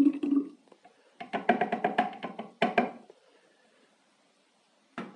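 Apple juice pouring from a juicer jug into a large glass jar, the pour ending within the first second. It is followed by a quick run of hard knocks with a ringing tone lasting about a second and a half.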